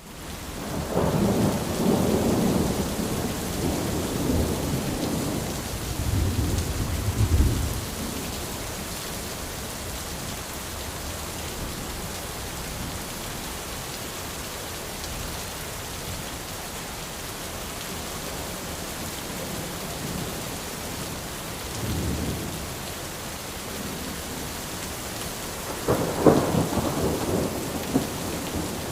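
Steady rain pattering on an umbrella, with rolls of thunder: a long rumble in the first several seconds, a short one past the middle, and another strong roll near the end.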